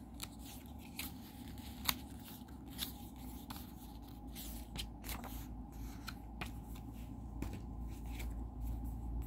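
Paper ad inserts and a plastic Blu-ray case being handled: faint rustling of paper with scattered light clicks and taps, the sharpest about two and three seconds in.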